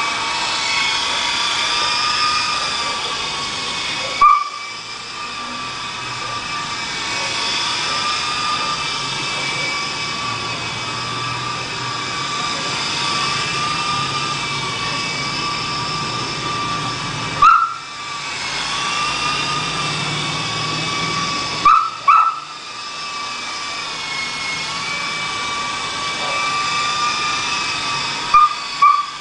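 Walkera HM 53-1 radio-controlled model helicopter's electric motor and rotor whining steadily at a high pitch that wavers slightly. A few short clicks come about 4, 17, 22 and 28 seconds in, each followed by a brief dip in the whine.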